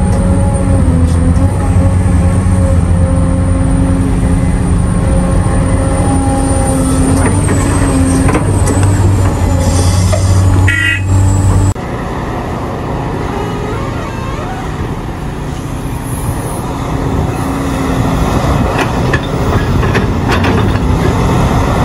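Large Caterpillar hydraulic excavator's diesel engine running steadily under load, with a high whine over it and a brief squeal just before the sound changes abruptly about halfway through. After that comes a somewhat quieter stretch of machine noise with scattered knocks of rock dropping into a dump truck's steel bed.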